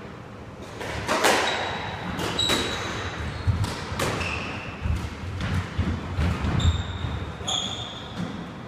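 A squash rally: about six sharp hits of the ball on rackets and the court walls, roughly one a second, with short high squeaks of court shoes on the wooden floor between them.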